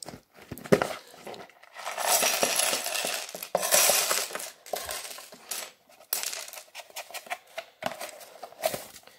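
Loose LEGO pieces tipped out of their container and clattering onto a wooden floor: a dense rattle of small plastic bricks in the middle, with scattered clicks and taps before and after as the container is opened and shaken out.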